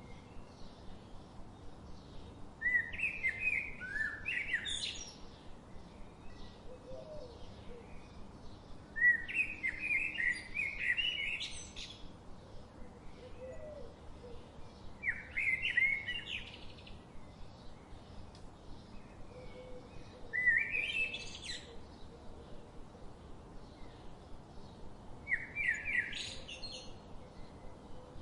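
A songbird singing a short, quick, warbling phrase that rises to high notes at its end, repeated five times about every five to six seconds.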